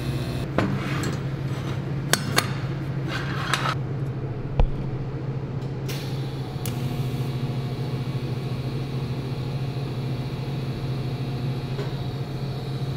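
TIG welding arc running with a steady low hum, broken by a few sharp clicks and knocks in the first half, the loudest a thump about four and a half seconds in.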